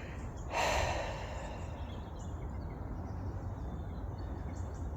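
Outdoor ambience with a steady low wind rumble on a handheld phone's microphone, and a brief rush of noise about half a second in.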